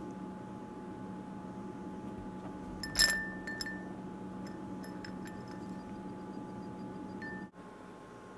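Ice cubes clinking in an empty drinking glass as a kitten paws at them. There is one sharp, ringing clink about three seconds in, then several lighter clinks.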